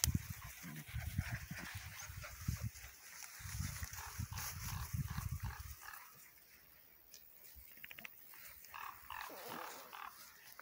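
Borador puppies growling and grunting in rough play for about the first six seconds, after which it turns much quieter.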